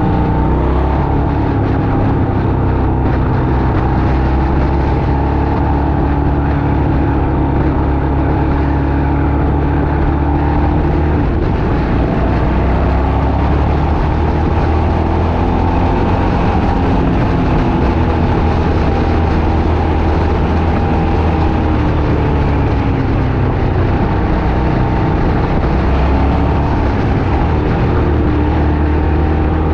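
A vehicle's engine running under way with road and wind noise. Its pitch drifts up and down with the revs.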